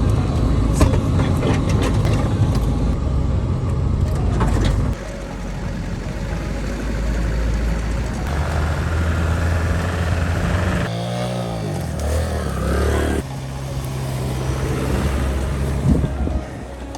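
A 1987 Toyota pickup's engine running as the truck drives through snow. The engine note changes abruptly a few times.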